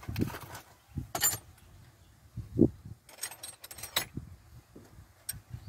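Metal hand tools (spanners and wrenches) clinking and rattling as they are handled and rummaged through in a tool tray, in short scattered clatters, with a few dull knocks in between.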